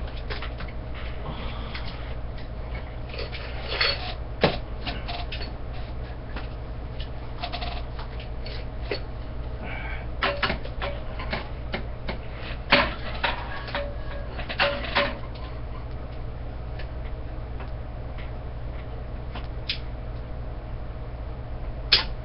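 Scattered clicks and metallic clinks of a TV antenna's metal rod elements and mounting hardware being handled and fastened by hand, in irregular clusters with pauses between, over a steady low hum.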